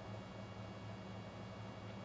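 A steady low hum over a faint even hiss, unchanged throughout.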